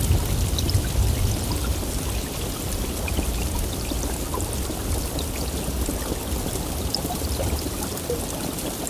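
Heavy rain falling steadily, with individual drops ticking through it. A low rumble of thunder fades away over the first several seconds.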